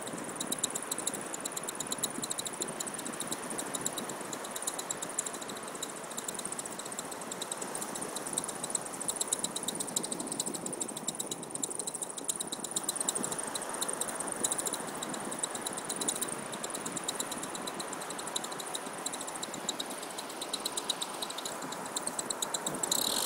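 Powered paraglider's two-stroke paramotor engine running steadily, a fast even buzz.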